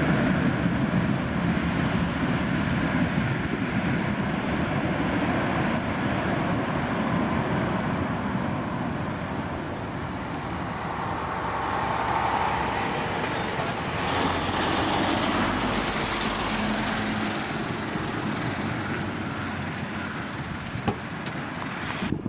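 Boeing 737's twin CFM56-7B turbofan engines running, a steady jet roar that swells and eases slowly over about twenty seconds.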